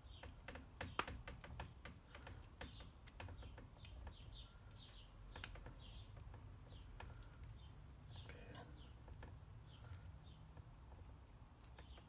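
Faint light clicks and ticks of a wire being handled and fed into a plastic terminal-block connector, with a few sharper clicks in the first couple of seconds. Faint short high chirps sound throughout.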